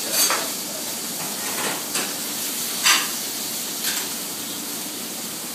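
Steaks frying in pans on a commercial gas range, a steady sizzling hiss, with a few sharp clinks and clatters of tongs and pans, the loudest about three seconds in.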